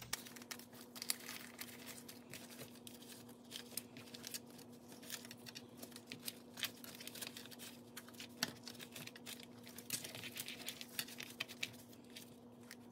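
Faint rustling, crinkling and small irregular clicks of paper cash bills being handled and counted by hand. A steady low hum runs underneath.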